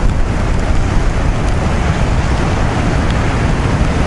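Wind buffeting the microphone over the steady, heavy rumble of storm surf breaking on a rocky shore.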